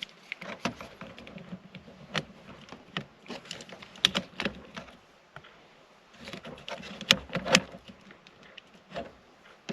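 Irregular small clicks, taps and rattles of hands and a tool working on dashboard parts around a switch, with a short lull about halfway through.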